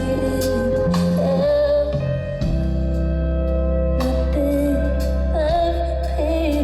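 Live band playing a slow instrumental passage of a soft pop ballad: sustained bass and chords under a lead line that slides and wavers in pitch.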